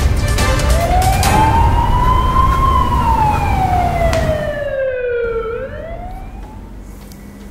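A siren wailing: one tone that climbs over about two seconds, sinks slowly for about three, then begins to climb again. A low rumble under it stops about halfway through, and the whole sound fades toward the end.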